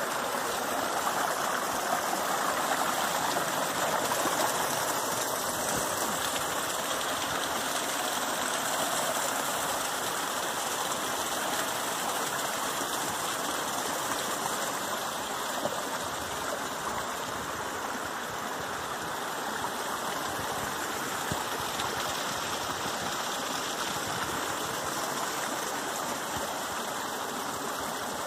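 Small forest stream splashing down little cascades over rocks: a steady rush of water, a little softer after about ten seconds.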